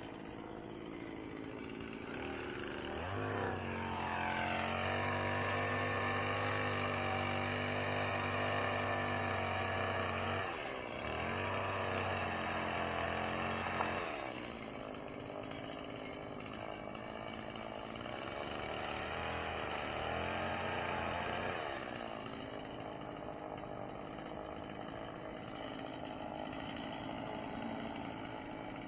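Chainsaw run up to high speed about three seconds in and held there for about ten seconds, with a short dip partway. It drops back to a lower speed, rises again for a couple of seconds, then settles back down.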